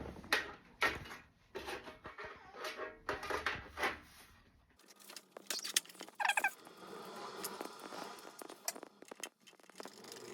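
Repeated clicks and knocks of the metal DVR case and its cover being handled and fitted back together. After about five seconds it goes quieter, with scattered light ticks and a brief high squeak.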